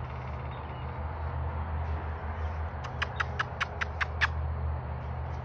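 A rapid series of about eight sharp, clicking call notes from an animal, some five a second, lasting about a second and a half, over a steady low hum.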